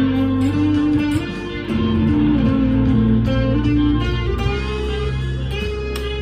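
Harley Benton SC Custom II single-cut electric guitar played through an amp's crunch channel: picked, lightly overdriven single notes and held notes that change pitch every half second or so, with a short drop in loudness about a second and a half in.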